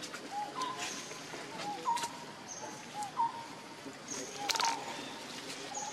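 A string of short, high animal calls, about one every half second to a second, over a thin high steady whine that comes and goes, with a few sharp clicks.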